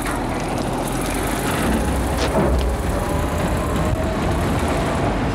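Caterpillar D6 bulldozer's diesel engine running at open throttle as the dozer reverses, its drive sprocket turning the loose track round. Two sharp clanks come about two seconds in.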